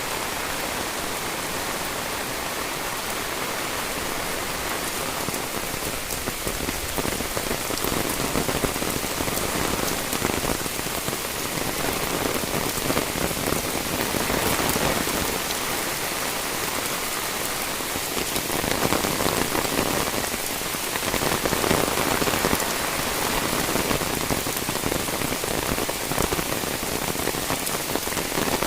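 Heavy rain falling steadily, swelling louder for a few seconds at a time now and then.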